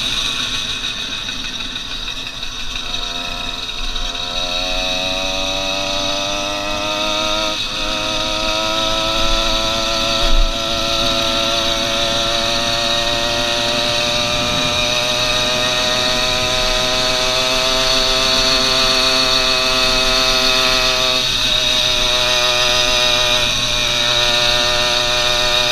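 Ported PK80 66cc two-stroke motorized-bicycle engine running under load as the bike rides, its pitch climbing slowly as it gathers speed. It breaks off for a moment about seven seconds in, then dips slightly and levels off about twenty seconds in.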